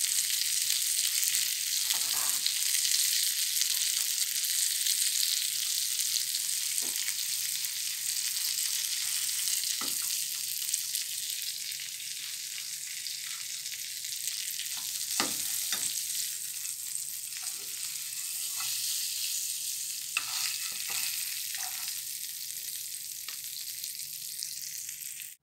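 Hot oil sizzling steadily around coated stuffed pomfret in a shallow frying pan, easing off slightly with the flame turned off. A few light knocks against the pan come as the fish are lifted out.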